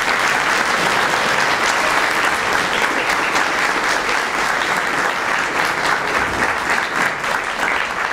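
Audience applauding steadily, a dense mass of clapping hands.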